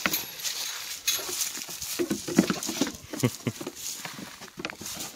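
Half LaMancha, half Nigerian Dwarf dairy goats moving about on wooden boards: irregular clattering taps of hooves, with a few short low animal sounds from the goats in the middle.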